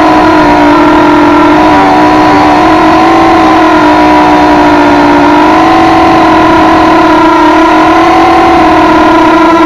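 FPV quadcopter's brushless motors and propellers whining loudly, heard through the onboard camera: several steady tones that waver slightly in pitch as the throttle shifts.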